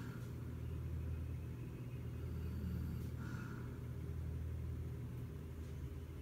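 A sleeping pet snoring: a low, steady rumble with breathy rasps at the start and again about three seconds in.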